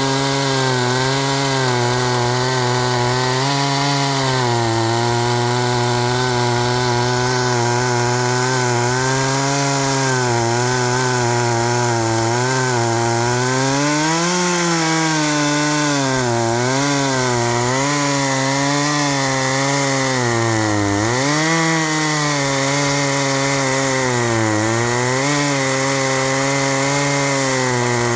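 Chainsaw fitted to an Archer portable chainsaw mill, running under load as its chain rips lengthwise through a log. The engine note holds steady but sags and recovers in pitch several times as the cut loads it, most deeply about 21 seconds in.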